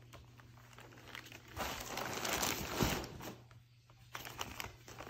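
Clear plastic packaging crinkling and rustling as it is handled, loudest for a couple of seconds in the middle, with a few light clicks near the end.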